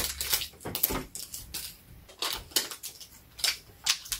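Plastic wrapping of an L.O.L. Surprise Fuzzy Pets ball crinkling and tearing as it is peeled off by hand, in irregular crackly bursts.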